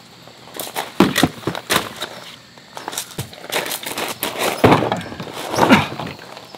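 Things being handled and set down: an irregular run of knocks and thuds with rustling between them, the loudest thuds about a second in and twice near the end.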